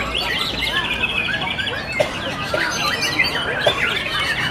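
A white-rumped shama (murai batu) singing a varied run of whistles, chirps and a rapid trill, over a dense chorus of many other caged songbirds. A few sharp ticks sound in the second half.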